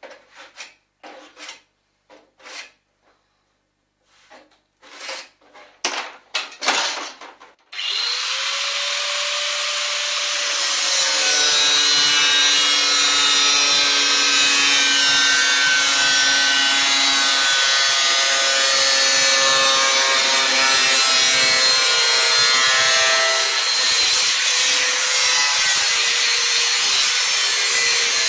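Angle grinder spinning up about eight seconds in, then cutting steadily through a computer's sheet-metal case with a harsh grinding noise and a high whine. Before it starts, a run of short knocks and taps.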